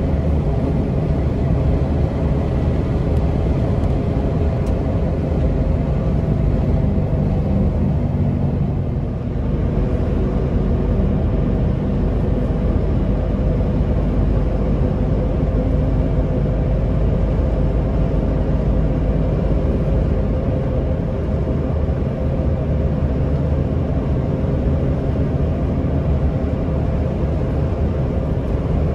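Steady engine hum and road rumble of a vehicle driving along at an even speed, heard from inside the vehicle.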